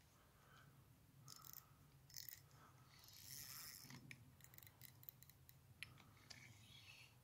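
Faint ticking and scraping of a spinning reel being cranked to retrieve a lure, with a few sharper clicks.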